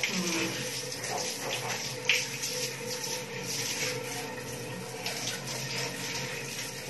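Water spraying steadily from a handheld shower head onto a wet dog's coat and the tiled floor during a bath, with one brief sharp sound about two seconds in.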